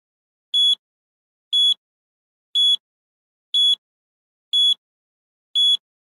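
Countdown timer sound effect: a short, high-pitched electronic beep once a second, six times, marking off the seconds.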